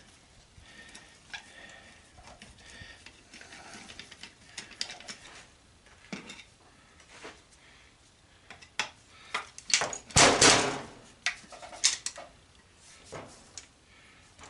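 Flat screwdriver working at a tight screw in an antenna rotator's metal housing: scattered clicks and scrapes of the blade and of the part being handled. About ten seconds in comes a louder metallic clatter, the loudest sound.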